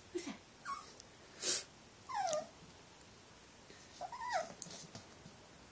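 Cavalier King Charles spaniel puppy giving a few short, high yips and whines, falling in pitch, with a breathy huff about a second and a half in, at his own reflection in a mirror.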